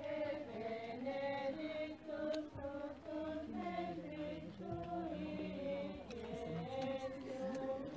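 Choir of cloistered nuns singing a hymn to the Madonna, several women's voices holding long notes that step from one pitch to the next.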